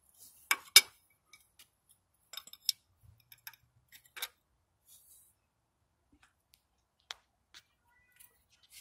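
Scattered sharp metallic clinks and taps of a wrench and the threaded-rod press tool during a harmonic balancer install. The loudest is a quick pair about a second in, with smaller clinks spread through the rest.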